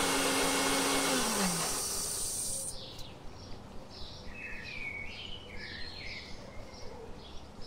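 Electric mixer grinder running with the tomato pickle in its jar, then switched off, its motor whining down in pitch and stopping about a second and a half in. Then birds chirping, repeated short high calls.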